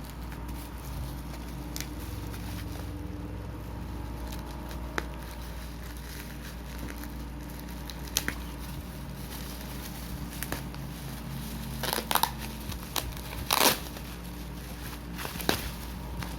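Food packaging being handled during unboxing: scattered crinkling and rustling with a few sharp clicks, busiest in the second half, over a steady low hum.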